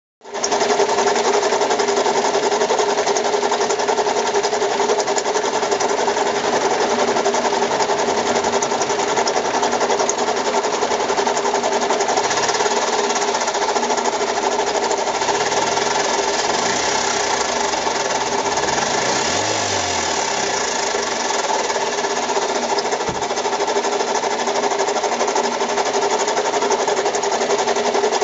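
Mazda 6 engine running at a steady idle with a fast, continuous knocking and rattling, a fault that appeared suddenly and is not down to low oil.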